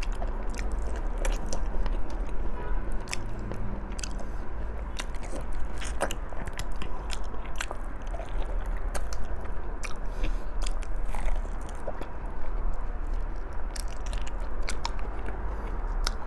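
Close-miked chewing and biting of tender stewed pork trotters (balbacua), with many small sharp wet mouth clicks and smacks.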